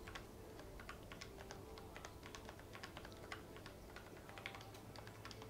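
Faint, quick typing on a Logitech MX Mechanical Mini low-profile mechanical keyboard with tactile brown switches. The keys are pressed lightly, so each stroke is a soft click.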